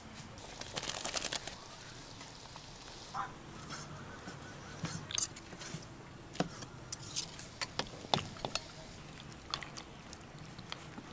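Scattered knocks and clicks of food preparation, including a cleaver striking a wooden chopping board as it minces fish, with a quick run of clicks about a second in.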